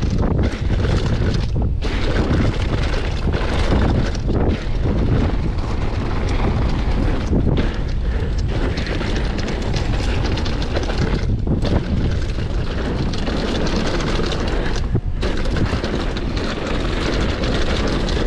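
Downhill mountain bike running down a dirt trail: a steady loud rush of wind on the microphone mixed with the crunch of tyres over loose ground.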